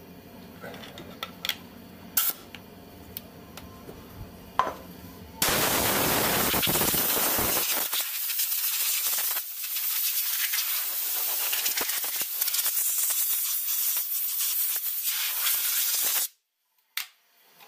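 Faint clicks and handling noises, then a loud steady hiss from about five seconds in, lasting about ten seconds and cutting off suddenly near the end.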